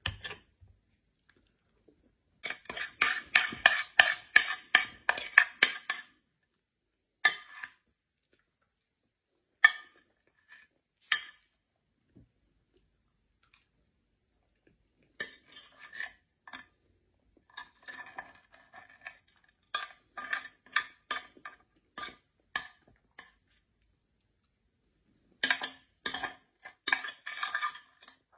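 Metal spoon scraping and clinking against a glass baking dish as the last of the food is scooped out. The strokes come in quick runs, with single clinks and pauses between them.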